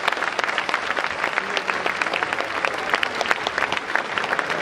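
Audience applauding: many hands clapping steadily in a dense, continuous patter.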